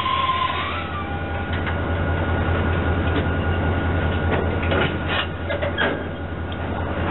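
Diesel locomotives, a GE C39-8 and an EMD SD40-2, running with a steady low rumble. A few brief metallic clanks come about four to six seconds in.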